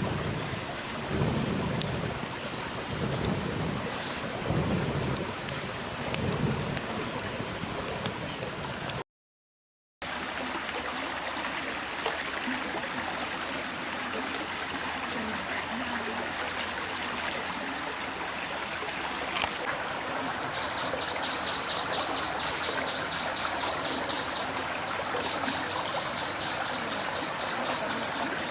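Heavy rain falling, with low rolling rumbles of thunder for the first nine seconds. After a sudden cut, a steady hiss of falling water carries on, and a high, rapid chirping trill of about five pulses a second comes in over it for the last several seconds.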